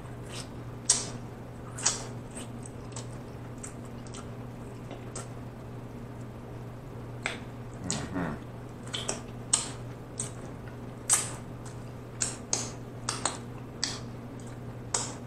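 Close-miked eating of sauce-covered barbecue ribs: wet lip smacks and mouth clicks at irregular intervals, more frequent in the second half, with a short hum from the eater about eight seconds in.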